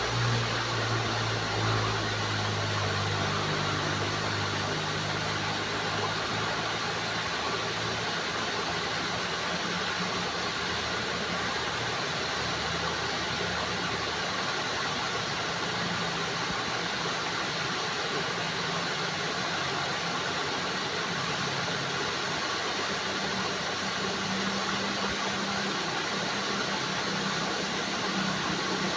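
Water flowing steadily, an even rushing hiss, with a low hum underneath that is strongest at the start.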